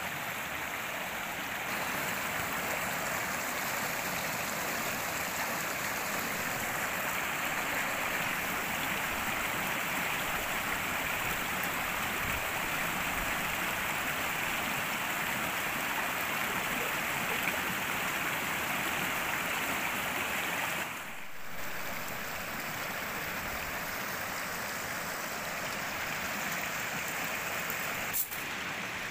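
Steady rushing of running water, briefly dipping about two-thirds of the way through, with a single sharp click near the end.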